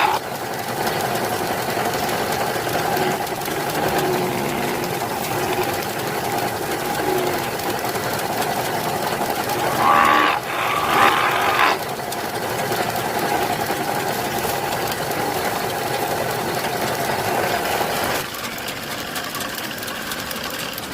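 Woodworking machine running steadily, with a louder, rougher stretch of nearly two seconds about ten seconds in.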